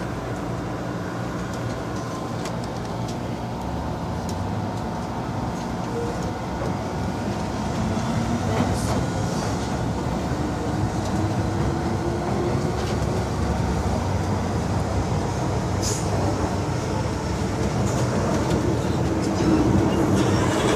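Hong Kong MTR M-Train heard from inside the carriage as it pulls out of a station and gathers speed: a motor whine slowly rises in pitch over the rumble of the running gear, which grows louder, with a few sharp clicks from the track.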